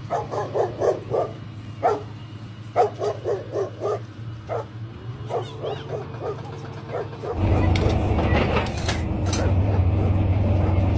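A dog barking repeatedly, in quick runs of short barks, through the first seven seconds or so. Then a louder, steady low hum takes over.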